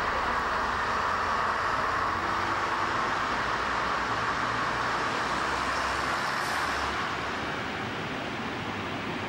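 Heritage first-generation diesel multiple unit pulling out along the platform, a steady diesel drone and running noise that eases off about seven seconds in.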